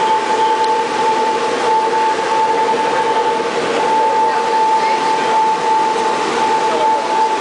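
A high, steady Morse code tone keyed on and off in long and short dashes and dots: the restored 1959 RCA H-Set transmitter sending its CW dedication message on the air. It sounds over a steady rushing noise from the running transmitter equipment.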